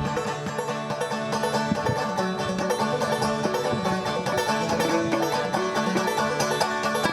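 Acoustic folk music with a banjo picking the lead in quick plucked notes.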